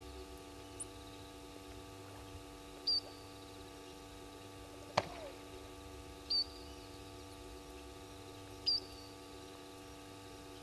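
A short, high chirping call repeats three times, about every three seconds, over a steady low hum. A single sharp click comes about halfway through.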